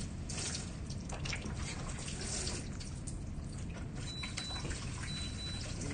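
Water running from a tap into a sink during washing up, a steady splashing with a few faint clinks.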